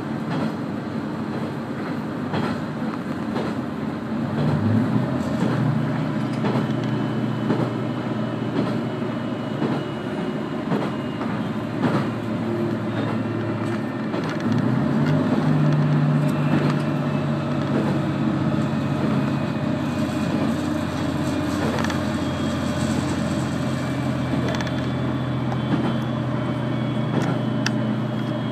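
Diesel railcar heard from inside the passenger cabin while running: a steady engine hum that grows louder about four seconds in and again about halfway through, as the engine pulls under power, with the wheels clicking now and then over rail joints.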